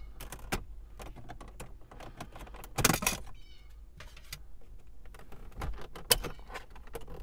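Plastic dashboard trim on a 2009 Toyota Corolla being pulled off by hand: a run of clicks and snaps as the trim clips let go. There is a louder rattle about three seconds in and a sharp snap about six seconds in.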